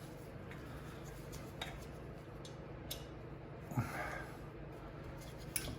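A few light clicks and taps of hand tools and small parts being handled while a diesel heater is taken apart, four or so scattered over several seconds, over a low steady hum.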